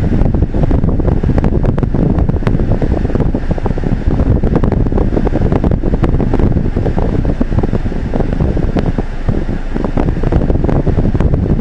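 Loud, uneven rumbling of wind buffeting the microphone, with no tones or voices in it.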